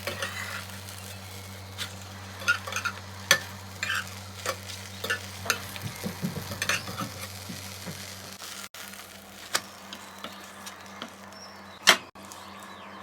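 Quesadilla frying in a pan: light sizzling, with a utensil knocking and scraping against the pan in scattered sharp clicks. A steady low hum underneath stops about two thirds of the way through.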